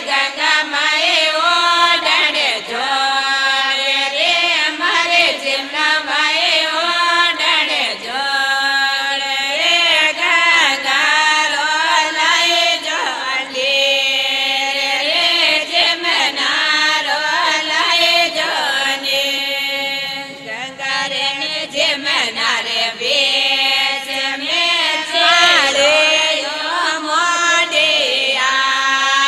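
A women's group singing a Rajasthani Marwari devotional song (geet) in long held, wavering notes.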